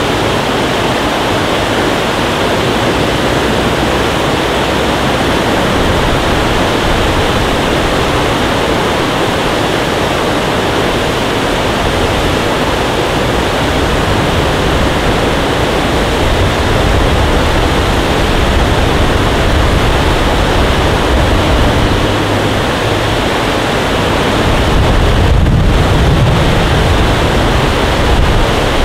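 Water rushing steadily over a rocky sill, a constant loud noise. A low rumble joins it in the second half and is strongest a few seconds before the end.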